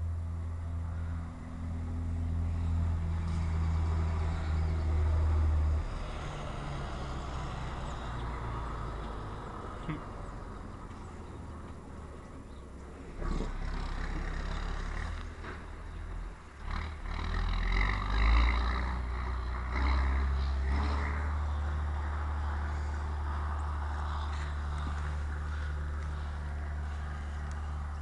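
Steady low engine hum of an idling vehicle. Between about 13 and 21 seconds in there is rustling with a few sharp knocks.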